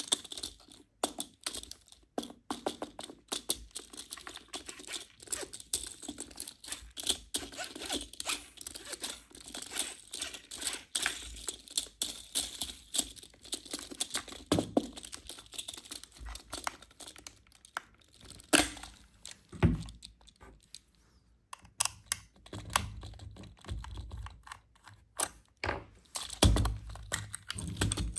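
Packaging being handled and opened: a fast run of crinkling, rustling and tearing of plastic and cardboard, with a few knocks and low thuds in the second half.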